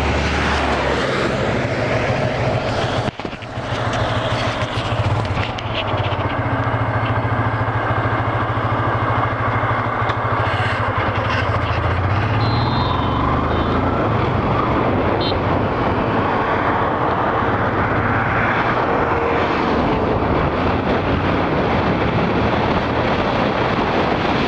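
Motorcycle engine running steadily while being ridden, under a constant rush of wind and road noise. The sound dips briefly about three seconds in, and the engine pitch rises around the middle as the bike speeds up.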